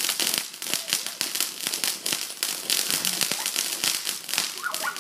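Ground firework fountain burning with a dense, rapid crackle of many small pops.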